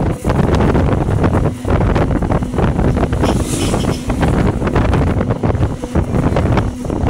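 Heavy wind buffeting the microphone of a moving vehicle, a loud rumbling rush with brief dips, with road and engine noise underneath.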